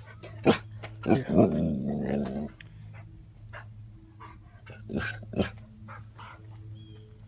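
Husky dog grumbling: a low, rough, growl-like vocalization about a second in, lasting about a second and a half. A few sharp knocks come before and after it.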